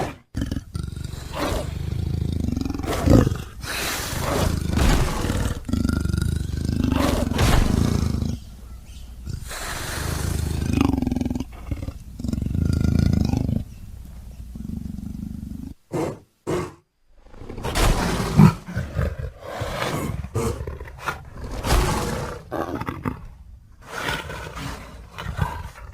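Designed creature sound effect for the extinct giant gelada Theropithecus oswaldi: a string of deep roars and growls, one after another, with a short break partway through. The calls are layered from leopard, baboon and other creature recordings.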